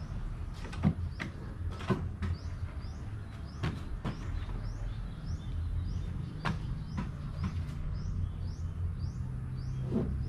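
A few scattered light knocks and clicks over a low steady hum, with a small bird chirping about twice a second from about three seconds in.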